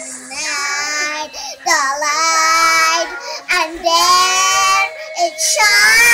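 Two young girls singing loudly in four phrases of high, long-held notes with short breaths between them.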